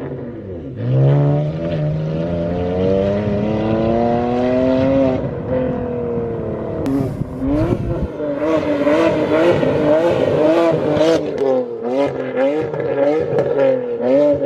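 Straight-piped BMW N52 inline-six, its catalytic converters gutted and resonator and muffler deleted, revving loudly. About a second in the revs climb steadily for about four seconds, then drop sharply and climb again. After that they rise and fall repeatedly.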